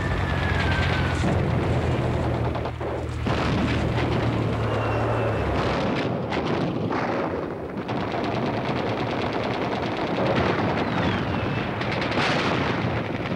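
Battle sounds: repeated gunfire and booming explosions, with a low heavy engine drone under them for the first five seconds or so and a couple of short falling whistles.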